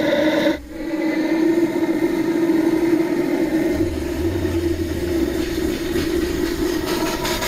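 Homemade kerosene-fired steam motorcycle running as it pulls away: a steady hum with a deeper rumble joining about four seconds in.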